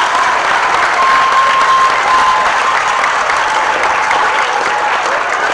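An auditorium full of schoolchildren and adults applauding, a dense, steady clapping that holds at an even level.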